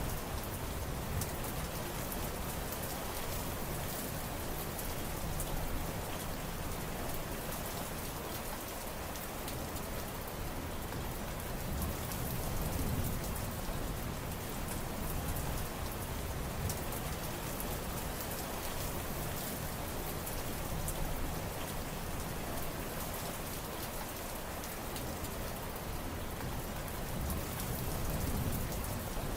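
Steady rain falling on surfaces, with many small drop hits and no thunder.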